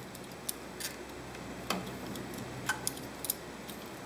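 A few light, scattered clicks and ticks at uneven intervals over a steady background hiss, one near the middle with a dull low knock.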